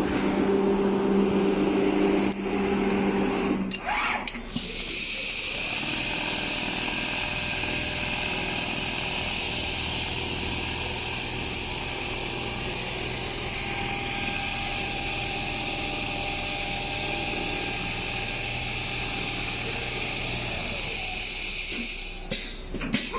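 Automatic large-panel sewing machine running: a steady motor hum with a few held pitches for the first three seconds or so, then a steady hissing mechanical whir with a low hum beneath, which eases near the end.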